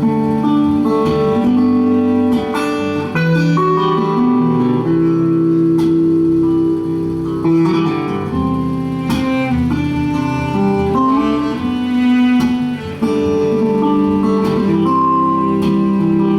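Acoustic guitar playing an instrumental break in a folk song, with plucked notes and some long held notes.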